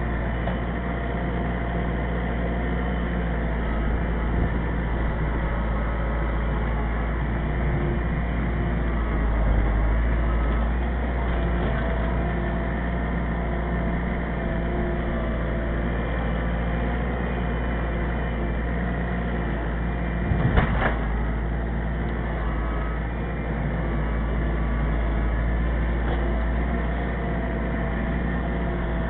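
Kubota L4400 tractor's four-cylinder diesel engine running steadily under work, with a single knock about two-thirds of the way through.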